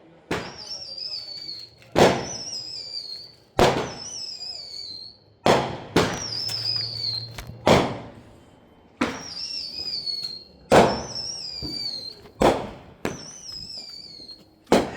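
Fireworks going off in a steady string: a loud bang about every one and a half to two seconds, each followed by a wavering whistle that slides down in pitch.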